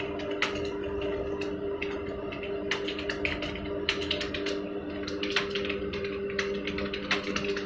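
Computer keyboard keys clicking in quick, irregular runs of keystrokes during fast typing, over a steady low hum.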